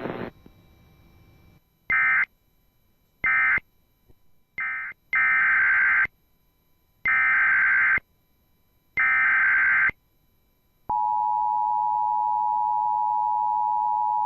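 Emergency Alert System tones. First three short bursts of screechy SAME digital data, which close the previous message, then three one-second SAME header bursts for the next alert. About 11 seconds in, the steady two-tone EAS attention signal (853 and 960 Hz) starts.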